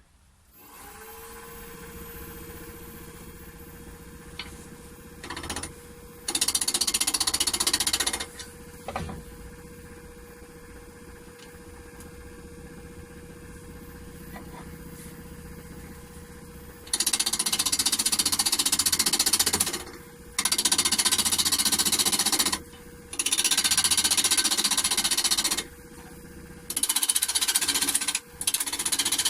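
A Holzmann D460FXL wood lathe starts up about half a second in and runs with a steady hum. A turning tool then cuts into the spinning wood in loud, rough stretches of a few seconds each: once near the start and four times in quick succession in the second half.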